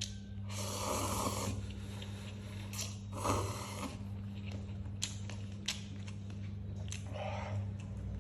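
Noodles being slurped in three long, noisy pulls, with small clicks between them, over a steady low hum.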